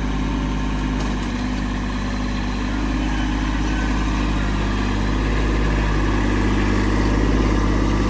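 Tractor engine running steadily, getting slightly louder in the second half.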